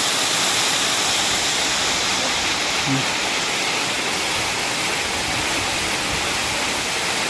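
Waterfall crashing down: a steady, even rush of falling water that throws a cold spray.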